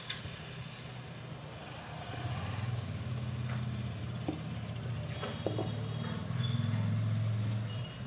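A low motor drone, swelling about two seconds in and louder again near the end, with a few faint clicks.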